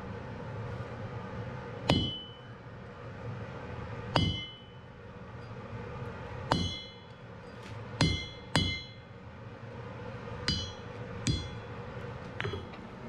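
A hand hammer strikes a red-hot iron bar on an anvil eight times at an uneven pace, about one blow every second or two. Each blow gives a sharp clang followed by a short, bright metallic ring, and the last one is lighter.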